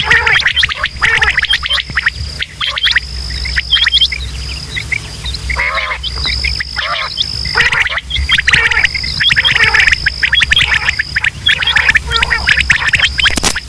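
Quail calling over and over in a dense chorus, the repeated calls used as a lure to draw wild quail. A high, steady whine comes and goes every second or two under the calls.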